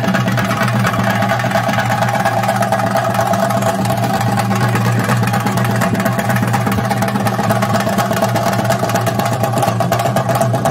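Chenda drums playing a dense, fast roll: an unbroken, loud din of rapid stick strokes with a steady drone underneath.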